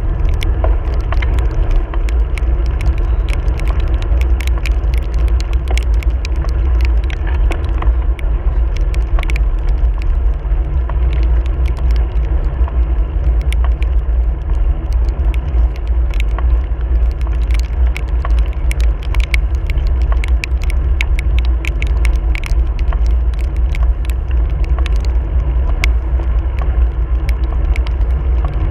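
Steady heavy wind buffeting on the camera microphone while riding a wet road in the rain. Dense irregular ticking and crackling runs through it, from raindrops and spray hitting the camera.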